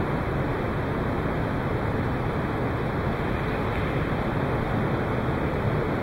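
Steady, even background noise of the venue, with no ball strikes or other distinct events.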